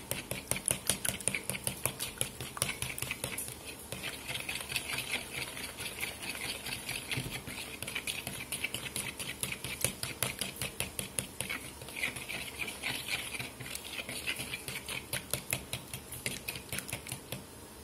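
A metal fork beating eggs and cream in a plastic mixing bowl, the tines clicking rapidly and rhythmically against the bowl as the liquid is whisked.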